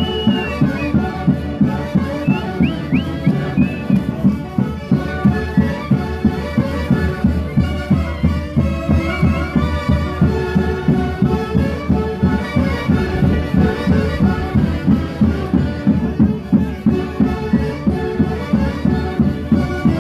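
Andean festival band (orquesta típica from Huancayo) playing Santiago dance music: wind instruments carrying the tune over a steady drum beat. A few short rising whistle-like calls sound about two to three seconds in.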